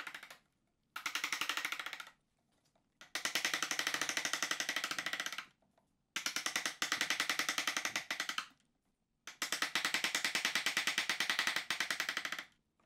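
Light, rapid mallet taps on a blue-handled Irwin chisel paring waste from a curved cut in a wooden apron, in four runs of quick taps, each two to three seconds long, with short pauses between. The taps are kept light so as not to break off the thin point of the Cupid's-bow shape.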